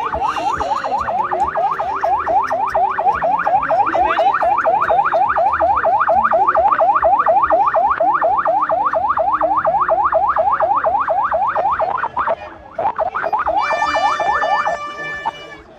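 Electronic vehicle siren in yelp mode: a fast rising sweep repeated about five times a second. It breaks off briefly about twelve seconds in, then resumes and changes to a steady held tone near the end.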